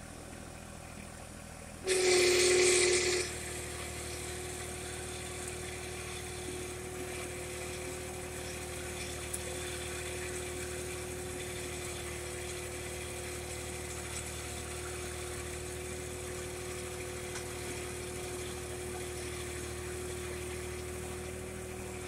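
John Deere 1025R compact tractor's three-cylinder diesel running steadily at idle while pulling a disc bedder through tilled soil, with a steady whine over the engine hum. About two seconds in there is a louder surge lasting about a second.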